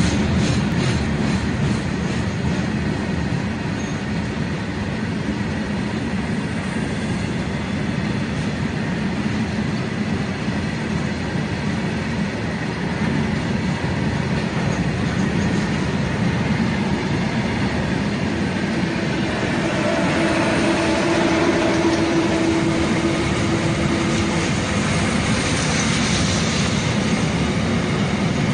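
Freight train wagons rolling past at speed: a steady, loud rumble of wheels on rail. A thin whine joins in for a few seconds past the middle.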